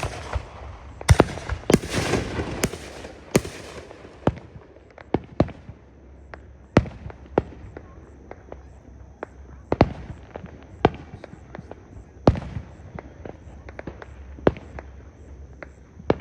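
Fireworks going off: a quick string of sharp bangs with crackling in the first few seconds, then scattered single bangs about a second apart.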